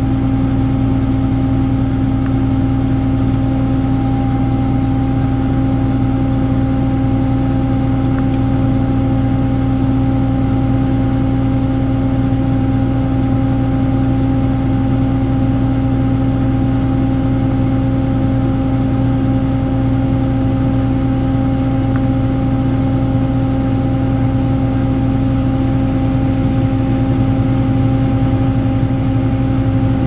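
A farm vehicle engine running steadily at a constant speed: an even, unchanging hum with no revving.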